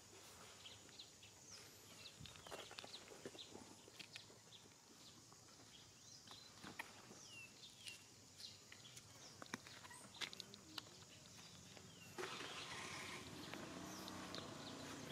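Quiet outdoor ambience: faint scattered chirps and light ticks over a low hiss, which gets louder about twelve seconds in.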